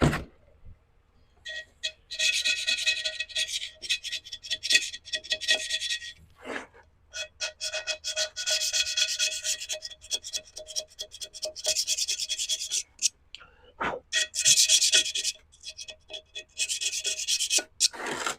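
Paint being scraped off a glazed ceramic bonsai pot with a scraping tool: quick back-and-forth strokes with a squeaky ringing edge, in four bouts with short pauses between them.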